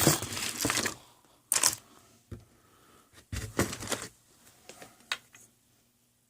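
Small sewing odds and ends such as bobbins, needles and pins clicking and rattling as they are picked through by hand, in several short clatters.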